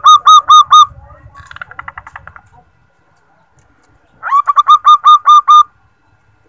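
Female zebra dove (perkutut) calling: rapid runs of short staccato coos at about six notes a second. One loud run ends about a second in, a fainter run follows, and a second loud run comes near the middle.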